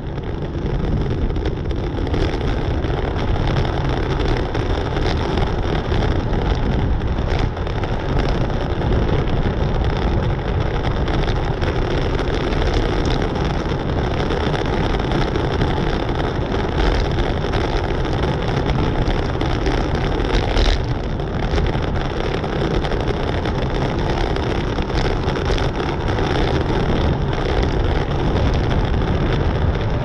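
Steady wind rush on the microphone of a bicycle-mounted camera at race speed, around 23 mph, with the bicycle's tyre noise on the road surface. There is a single brief click about two-thirds of the way through.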